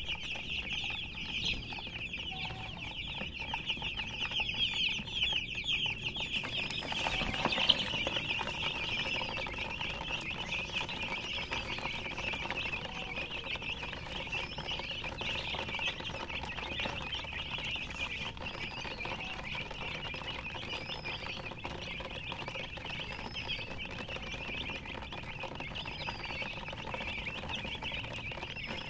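A brood of young chicks peeping continuously in a dense chorus of rapid, high chirps, with one higher arching chirp recurring about every two seconds.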